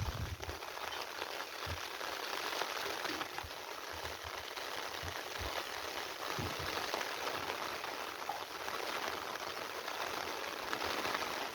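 Steady rain falling, an even hiss, with a few brief low thumps on the microphone.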